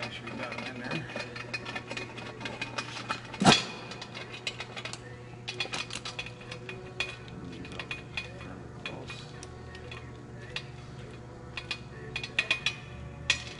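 Scattered metal clicks and clinks of bolts, hand tools and the intake manifold being fitted to a Detroit Diesel Series 60 engine, with one loud clank about three and a half seconds in. A steady low hum runs underneath.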